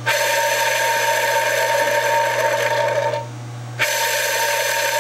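The G56's worn clutch release bearing, a constant-contact bearing with 99,000 miles on it, being spun on the input shaft guide tube. It gives a steady whirring with several held tones, stops for about half a second near three seconds in, then spins up again.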